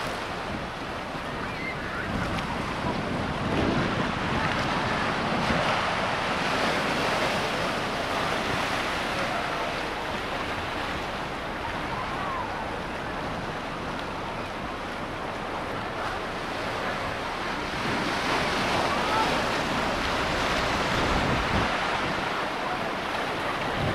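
Ocean surf washing onto the beach, a steady rush of waves that swells louder a couple of times.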